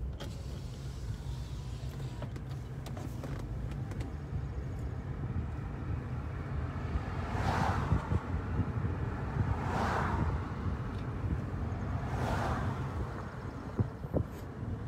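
Car driving slowly, heard from inside the cabin: a steady low rumble of engine and tyres. About halfway through come three brief swells of noise, roughly two and a half seconds apart.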